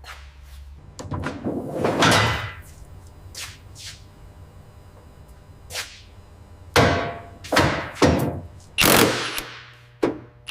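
A series of heavy knocks and thuds like hammer blows: a longer rough scraping knock near the start, then five separate sharp hits in the second half.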